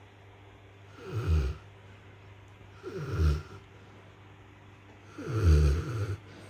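A sleeping Rottweiler snoring: three low snores about two seconds apart, each falling in pitch. The last is the longest and loudest.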